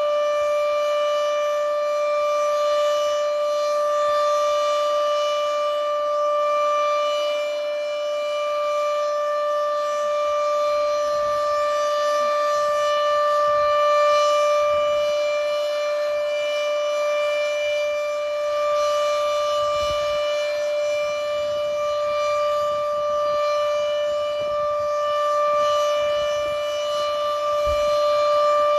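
Outdoor civil-defense warning siren sounding a steady, unbroken tone during a test. Its loudness swells and fades every few seconds.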